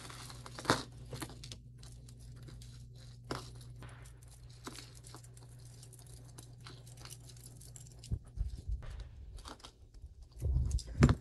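Quiet rustling and crinkling with scattered small clicks as jewelry is unwrapped and handled, with a few louder thumps near the end.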